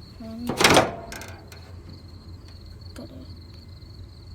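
Crickets chirring steadily in the background, with one short, loud rasping burst about half a second in.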